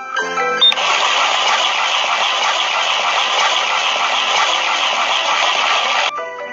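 Cartoon sound effect of a concrete mixer drum churning its load: a steady rushing, gushing noise that starts about a second in and cuts off suddenly near the end.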